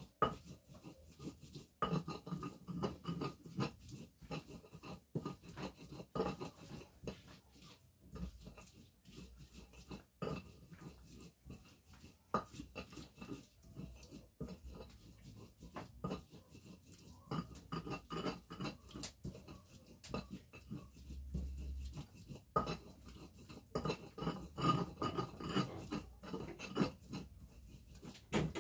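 Pestle grinding in a mortar, with irregular scrapes and knocks.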